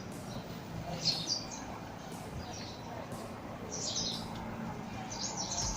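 Small birds in a tree chirping in short clusters of high calls, about a second in, around four seconds and again near the end.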